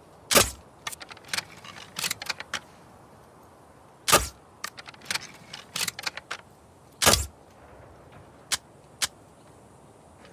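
A crossbow shot three times, each a loud sharp snap about three seconds apart, followed each time by a quick run of smaller clicks and rattles from the mechanism.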